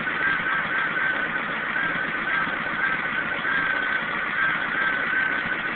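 1994 Chevy Cavalier's 2.2-litre four-cylinder engine idling unevenly, misfiring on two cylinders, which the owner puts down to wet spark plug wires arcing. A steady high whine runs over the engine noise.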